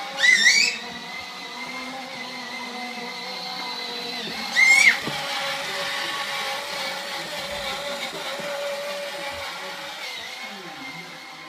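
Electric motor of a child's battery-powered ride-on toy motorbike whining steadily as it drives. Twice, once right at the start and once about four and a half seconds in, a short loud high-pitched wavering sound cuts over the whine.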